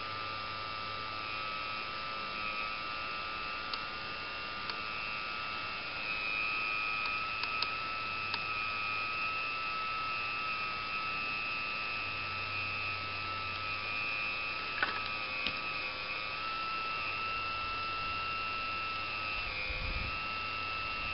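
Radio-controlled scale CAT 345 excavator working a log grapple: its motor whines steadily, the pitch sagging slightly now and then as it works under load. A few sharp clicks, the loudest about fifteen seconds in, and low thumps near the end.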